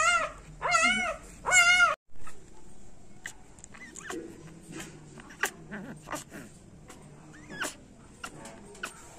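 Newborn puppy crying in high-pitched squeals, three rising-and-falling cries in the first two seconds; the uploader puts the puppy's distress down to a gas problem. After a sudden cut, only soft clicks and handling noise, with a brief faint whimper.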